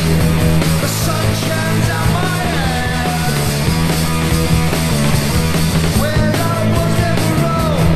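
Punk rock music: a full band with loud distorted electric guitars, bass and drums, and a lead part that bends up and down in pitch.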